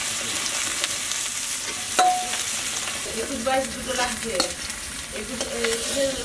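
Hilsa fish steaks sizzling as they shallow-fry in hot oil in a kadai, a steady hiss, with a sharp metal clink about two seconds in as a piece is lifted out with a metal spatula.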